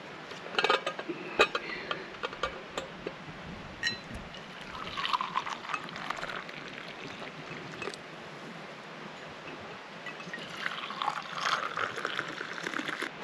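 A few sharp metal clinks and taps from a stainless steel French press as its plunger is pushed down. Then brewed coffee pours from the press into an insulated steel tumbler twice, first into one cup about five seconds in, then into a second cup near the end.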